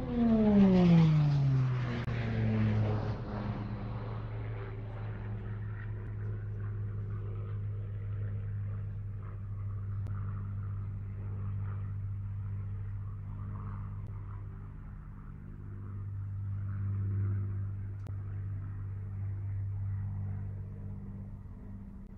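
An engine drone whose pitch drops steeply over the first two seconds, as when a motor passes by, then settles into a steady low hum.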